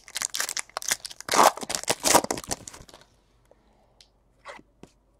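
A shiny foil trading-card pack wrapper being torn open and crinkled by hand for about three seconds. A few faint clicks follow near the end as the cards are handled.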